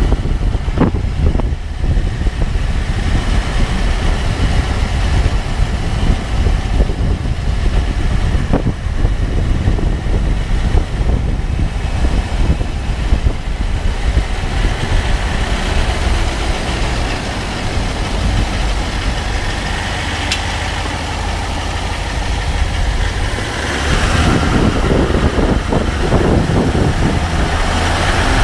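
2014 Range Rover Sport SDV8 running at low speed: a steady low rumble, with a few sharp clicks scattered through it. This is the unexplained low-speed clicking noise the owner is asking about.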